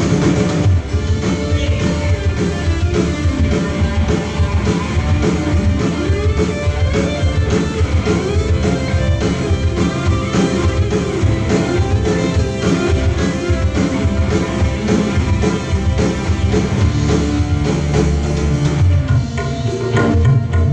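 Dangdut music with a singing voice and drums, played loud through a PA sound system.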